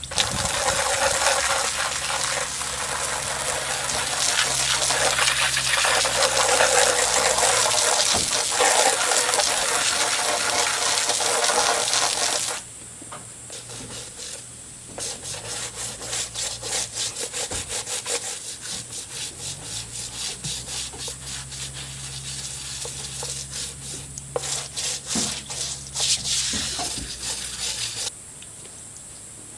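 Water spraying hard onto rubber truck floor mats for about twelve seconds and then cutting off, followed by a stiff brush scrubbing the mats in quick repeated strokes that stop shortly before the end.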